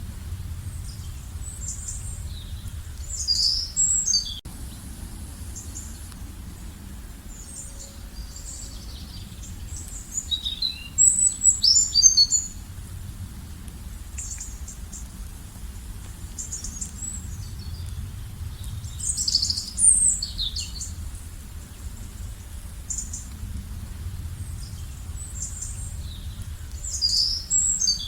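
Birds singing and chirping in high, quick phrases, with a louder burst of song about every eight seconds, over a steady low background rumble.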